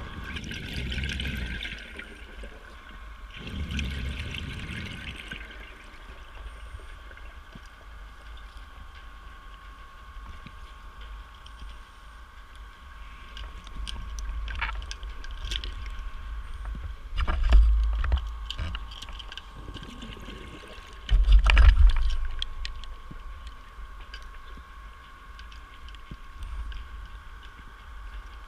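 Scuba diver's exhaled bubbles gurgling underwater in irregular bursts, the two loudest and deepest about 17 and 21 seconds in, over a steady high whine.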